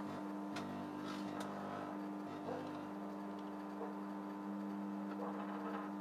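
Hinari microwave oven running with a steady electrical hum, with a few faint crackles from a circuit board arcing and burning inside the cavity.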